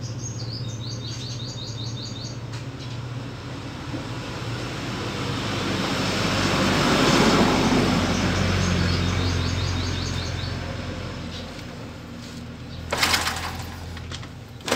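A small bird trills twice, a quick run of high chirps near the start and again about nine seconds in. Meanwhile a passing vehicle swells up and fades away around the middle, over a steady low hum, and a few sharp clicks come near the end.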